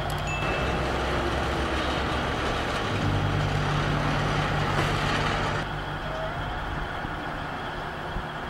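Heavy machinery engine running under steady load, with its drone shifting abruptly a few times.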